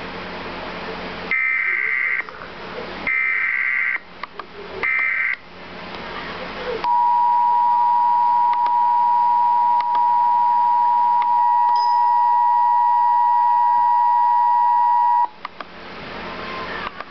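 Emergency Alert System broadcast alert: three short bursts of buzzing digital SAME header data tones about a second apart, then the two-tone EAS attention signal, a steady dual-tone tone held for about eight seconds before cutting off. It signals an incoming tornado warning. Hiss lies under the start and under the gaps.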